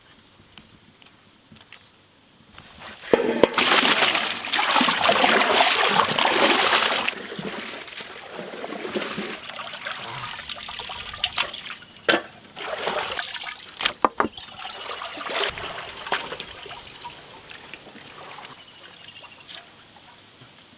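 Hands washing raw chicken pieces in water in a large aluminium pot: a steady rush of water starting about three seconds in and lasting some four seconds, then intermittent sloshing and splashing with a few sharp knocks against the pot, fading near the end.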